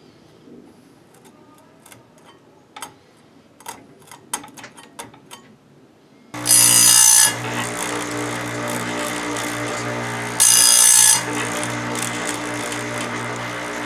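Light clicks and knocks of the chain being set in the Penson electric chainsaw sharpener, then its grinder motor starts about six seconds in and runs with a steady hum. Twice, right after it starts and again about four seconds later, the grinding wheel is brought down on a chain cutter, each time giving a loud hiss that lasts under a second.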